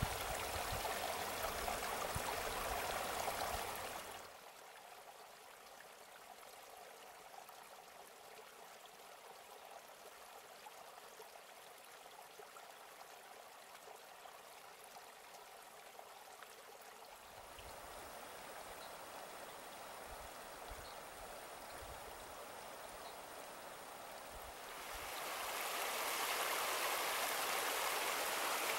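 Hot spring water running and trickling, a steady noise that drops off sharply about four seconds in, stays faint through the middle and comes back up near the end.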